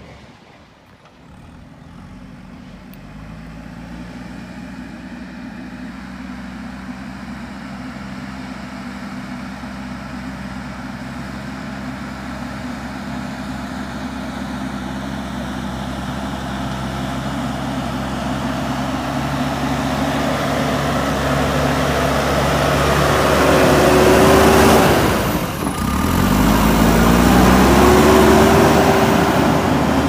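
JCB 3DX backhoe loader's diesel engine working under load, growing steadily louder as the machine comes closer. In the last few seconds the engine note rises and falls, with a brief drop about 25 seconds in.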